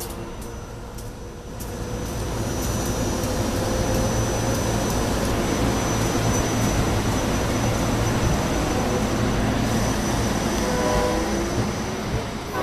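Electric locomotive and its train approaching: a steady, loud rumbling rush of motor and wheel noise with a faint high whine, building about two seconds in. Near the end, short horn notes begin to sound.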